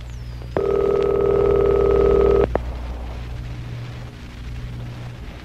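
Telephone ringing: one ring of about two seconds, starting about half a second in and cutting off sharply, over a low steady hum.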